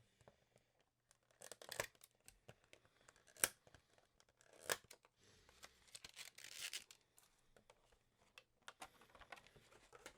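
Faint tearing and crinkling of a thin plastic wrapper as promo trading cards are pulled out of it by hand, in short scattered rustles with a few sharp clicks.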